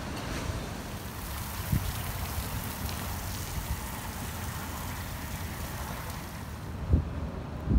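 Wind buffeting the microphone outdoors: a constant low rumble with three short low thumps from gusts, over an even rushing hiss that fades out shortly before the end.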